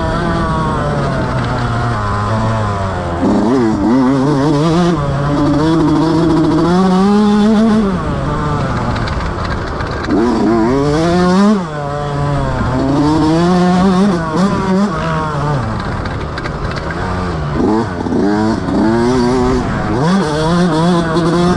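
Motocross bike engine working hard, its pitch climbing and falling again and again as the throttle opens and closes and the gears change.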